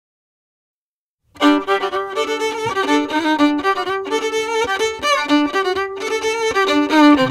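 Silence, then about a second in a klezmer tune with a fiddle lead starts abruptly.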